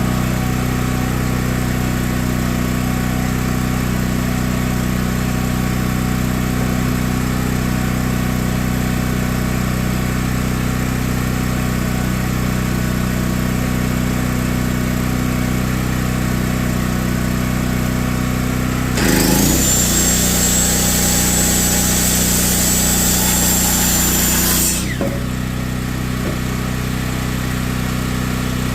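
A steady low engine-like drone. About two-thirds of the way in, a Hercules 7-1/4 inch corded circular saw spins up to a high whine, runs for about six seconds and stops abruptly.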